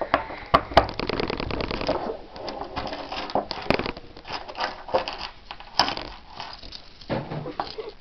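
A Best padlock and its keys being handled: sharp metallic clicks, with a quick run of rattling clicks in the first two seconds, then scattered clicks and key jingles as the key is tried in the lock again.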